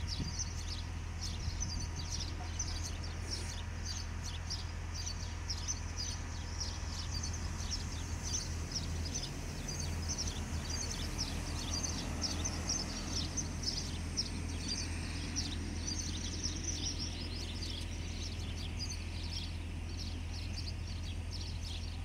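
A chorus of small birds chirping rapidly, many short high calls overlapping, over a steady low hum.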